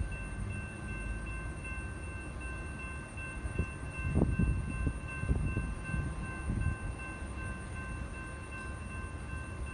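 Low rumble of a train somewhere out of view, with a few steady high tones over it. The rumble swells in uneven surges between about four and six seconds in.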